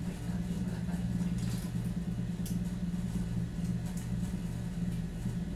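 A steady low electrical hum, with a few faint clicks and rustles as a microphone on its boom arm is handled.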